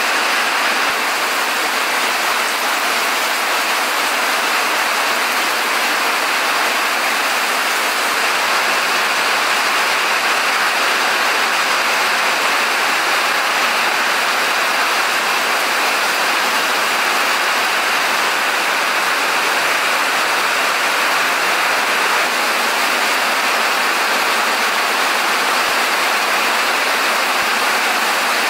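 Steady, even rain noise with no breaks.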